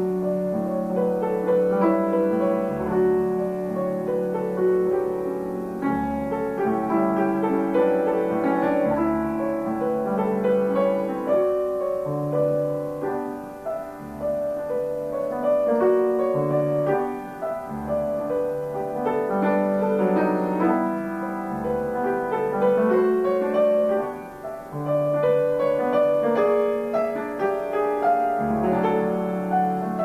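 Grand piano played solo: a classical piece in a continuous stream of notes over deep bass notes struck every few seconds, easing off briefly twice.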